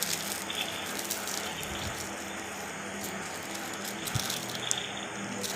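Hot oil sizzling steadily with scattered small crackles as food fries.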